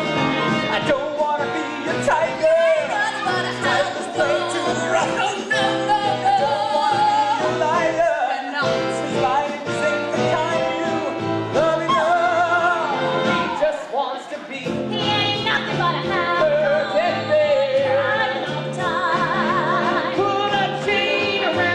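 Live musical-theatre cast singing over a rock-and-roll band with a steady bass beat. The band drops out briefly about two-thirds through, then a long held note sounds under the voices.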